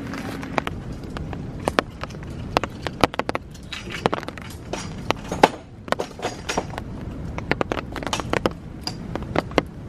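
Tarp poles being handled and set down on a wet wooden deck: a scatter of sharp clacks and knocks, with footsteps on the boards, over a steady outdoor hiss.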